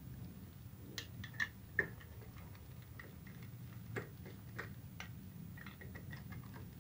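Faint, irregular light clicks and ticks of a screwdriver turning small screws out of the plastic back cover of a horn-speaker driver unit.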